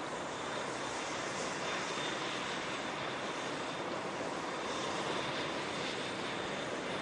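MCH-101 (AgustaWestland AW101) helicopters running, their three turboshaft engines and rotors giving a steady rushing noise with a faint high whine.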